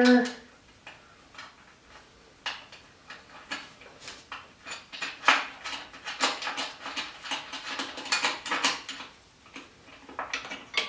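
Metal parts clicking and clinking as a rear PTO component is worked by hand into place on a garden tractor's frame and clutch. The clicks come scattered, with a denser run from about five to nine seconds in.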